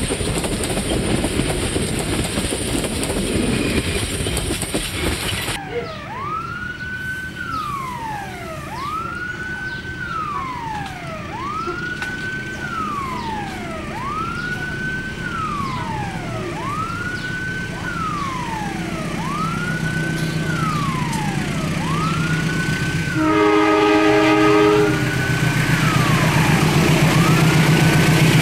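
Passenger carriages rumbling past close by, cut off about five seconds in. Then a level-crossing warning siren rises and falls about every one and a half seconds while an approaching diesel locomotive's engine grows louder, with a train horn blast lasting about a second and a half near the end.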